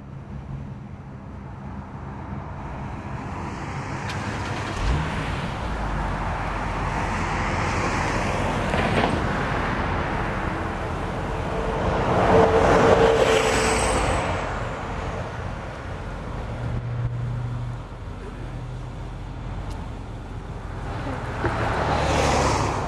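Road traffic: several cars passing by, each swelling and fading, the loudest about halfway through, over a steady low hum.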